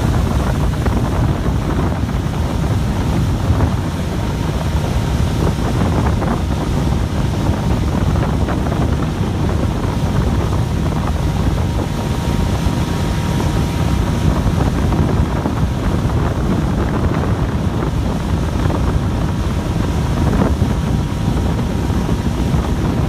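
Heavy wind buffeting the phone's microphone on a moving motorboat, a steady low rumble with no letup. The boat's motor and rushing water run underneath it.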